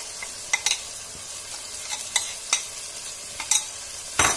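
Onions, tomatoes and green chillies sizzling in oil and ghee in a metal pot as a freshly added ground spice and ginger-garlic paste fries to cook off its raw smell. A steel spatula clicks and scrapes against the pot several times, loudest near the end.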